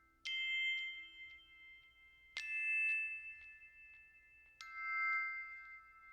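Background music: three slow, evenly spaced struck bell-like notes, glockenspiel or chime tones that each ring out and fade.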